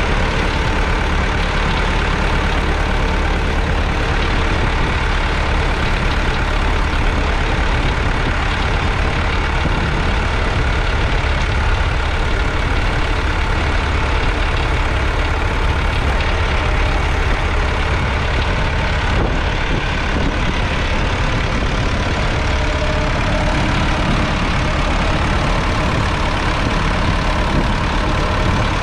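Massey Ferguson 165's 3.5-litre four-cylinder diesel engine running steadily under load as the tractor pulls a plough.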